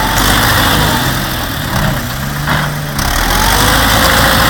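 Vehicle engines running loudly under a rough, noisy wash, easing off briefly about two seconds in and picking up again a second later.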